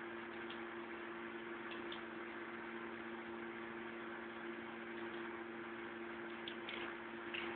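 Steady low electrical hum of two tones over an even hiss, with a few faint, scattered clicks.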